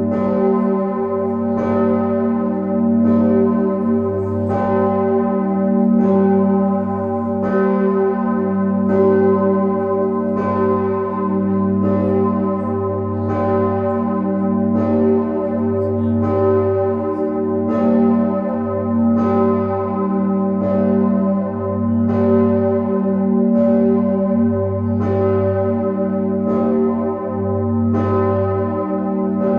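Osanna, the large church bell tuned to g°, ringing on its own in steady strokes about every second and a half. A deep humming tone hangs on between the strokes.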